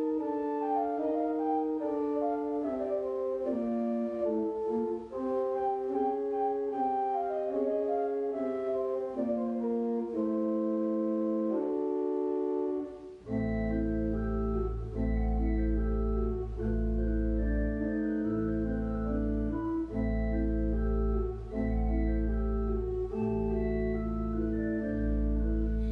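Church organ playing slow, sustained chords. About halfway through, deep pedal bass notes come in under the chords and the sound grows fuller.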